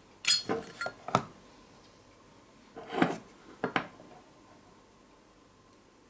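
Metal clicks and clinks from a Zippo windproof lighter's hinged lid being flipped open and snapped shut. There are four sharp clicks in the first second or so, then two more around three seconds in.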